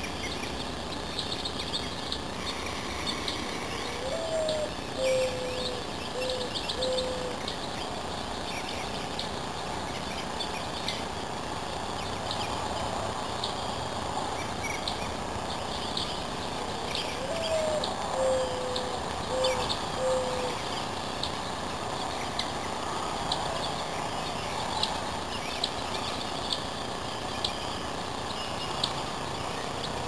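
Mourning dove cooing twice, about 13 seconds apart: each song a rising, sliding first coo followed by three short, lower, even coos. Other small birds chirp briefly throughout over a steady outdoor hiss.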